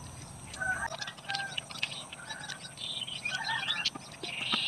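Domestic fowl clucking and calling: a string of short calls that starts about a second in, with higher chirps among them.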